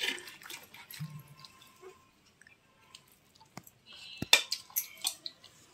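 Steel spoon knocking and scraping against a stainless steel plate while stirring chicken biryani, with a cluster of sharp clinks a little after four seconds in and a few softer knocks near the start.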